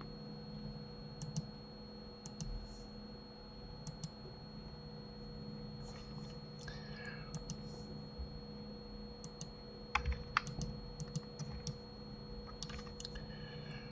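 Computer keyboard keystrokes and clicks, scattered taps with a quick run of them about ten seconds in. A faint steady hum runs underneath.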